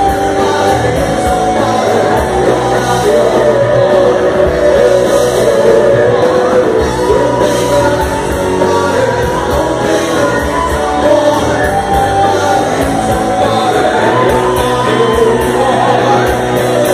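Rock band playing live with sung lead vocals over electric guitars, keyboard and drums, with a steady beat of cymbal hits.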